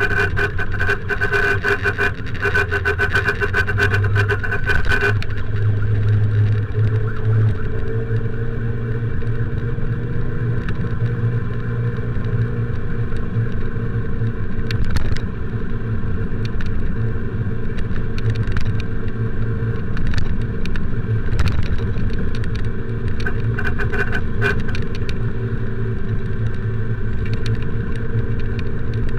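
A motorcycle ridden through road traffic, its engine running steadily. A dense crackle of clicks sounds for the first five seconds, then only a few scattered clicks.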